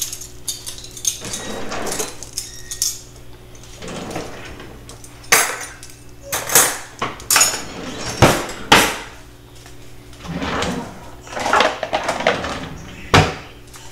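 Kitchen items being handled and set down on a granite countertop: a series of clinks and knocks, the sharpest between about five and nine seconds in and once more near the end, with brief sliding and shuffling in between.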